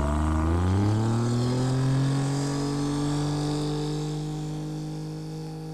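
Animated-film engine sound effect that rises in pitch over the first two seconds, as if speeding up, then holds a steady drone and slowly fades.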